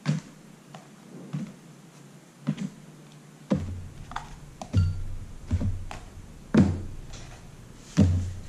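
A string of soft thunks and taps at uneven intervals as a paper plate and fried banana slices are handled and set down on banana leaves on a table, with a low hum coming in about halfway.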